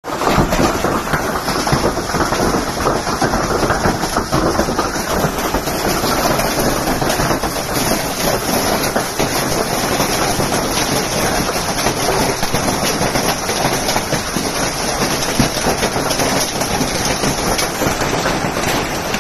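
Hail and rain pelting down hard, a dense steady clatter of hailstones striking hard surfaces.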